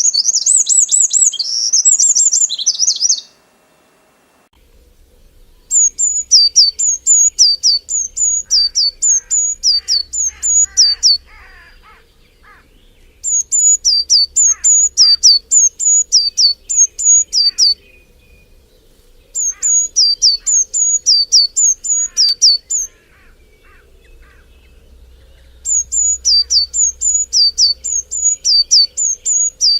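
Songbird singing: phrases of repeated high, downward-slurred notes, about three a second, each phrase lasting several seconds with short pauses between, over softer chirping from other birds. The first three seconds hold a different, denser high chirping that cuts off abruptly.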